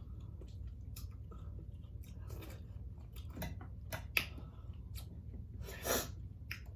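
Wet chewing and biting of king crab and seafood boil, with scattered small clicks and crackles from the shell and a louder crunchy crackle about six seconds in.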